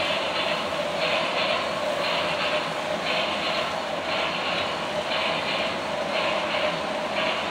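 Several model trains running around the track: a steady electric motor hum with a rhythmic rushing clatter that repeats about once a second.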